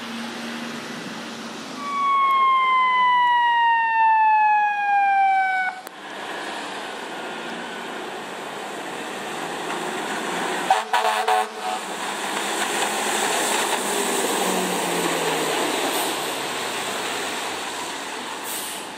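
Fire engine siren sounding one slow falling sweep for about four seconds, then cutting off suddenly. After it comes a steady hiss of rain and a wet road under the fire truck, with a brief rattle of knocks about eleven seconds in.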